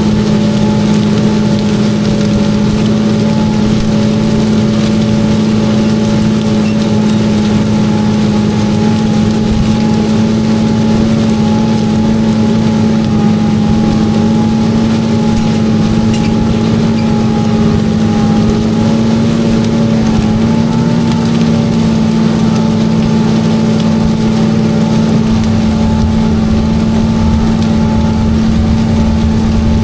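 Tractor engine running steadily under load while it pulls an in-line ripper through the soil.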